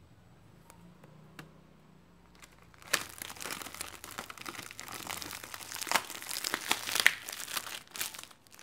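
Thin clear plastic sheet crinkling as it is stretched over the rim of a bowl and fastened with a rubber band. It starts about three seconds in and keeps up as dense crackles until near the end.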